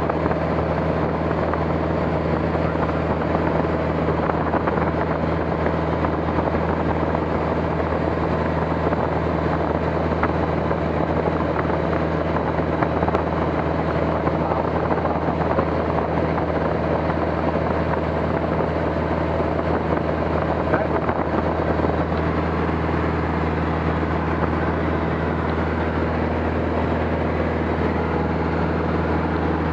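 Aircraft engine droning steadily in flight, with an even low hum and a noisy wash above it that stay constant throughout.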